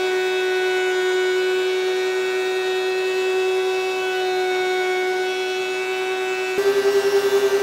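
DeWalt benchtop thickness planer running with a steady whine. Near the end a board feeds into the cutterhead and the sound turns louder, with a fast rhythmic pulsing as it cuts.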